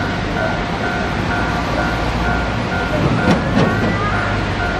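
Electronic level-crossing warning bell sounding steadily, a two-tone chime repeating about twice a second, over a low rumble. About three seconds in, two sharp clicks and a brief squeal.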